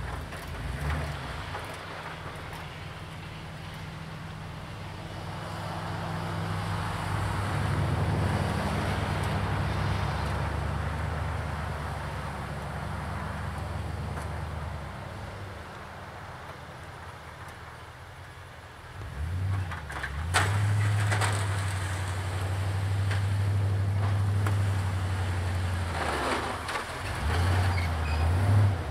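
Duramax diesel engine of a Chevy Silverado 2500HD pickup running under load while the truck pushes snow with a V-plow. The engine works harder about a quarter of the way in, eases off past the middle, then works hard again through the last third.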